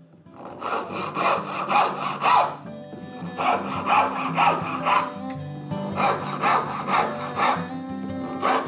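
Brass-backed backsaw ripping into a block of softwood in three quick runs of four or five strokes each, with brief pauses between. The saw, just corrected, cuts freely and fast.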